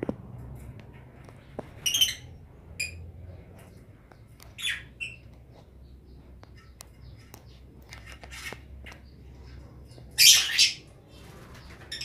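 Lovebirds squawking: short shrill calls about two and five seconds in, and the loudest, longest call about ten seconds in, over a low steady hum.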